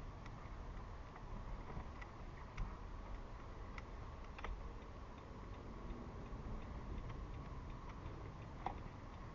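Low, steady road and engine rumble heard inside a moving car, with light clicks and ticks at uneven intervals.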